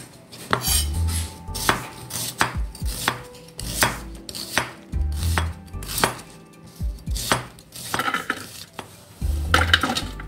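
Chef's knife slicing a red onion on a bamboo cutting board: a steady run of sharp knocks of the blade on the board, about one or two a second.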